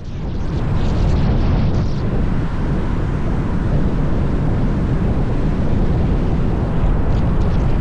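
Steady, loud, low rumbling noise with no clear pitch.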